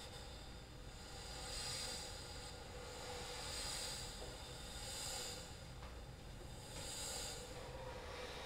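Violin bowed so lightly that the bow's airy hiss dominates, in slow repeated swells over a faint held tone.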